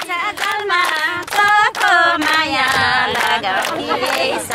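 Women singing a Nepali dohori folk song together, with steady hand clapping keeping time.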